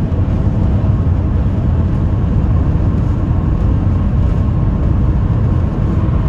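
Steady road and engine noise heard inside the cab of a diesel camper van cruising on a highway, mostly a low rumble with no change.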